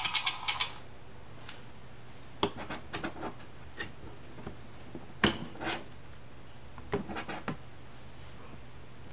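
Thick cardboard pages of a play-a-sound board book being handled and turned, giving scattered light taps and clicks, the sharpest about five seconds in. Just after the start, the book's sound-module tune cuts off.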